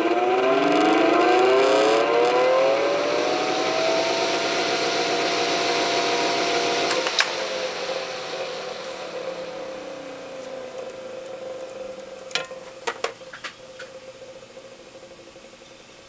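Old axial box fan with a shaded-pole motor, the kind that cooled old minicomputers: it spins up with a rising whine, runs steadily with a hum and rushing air, then after a sharp click about seven seconds in its sound slowly dies away as it coasts down. A few sharp clicks come near the end.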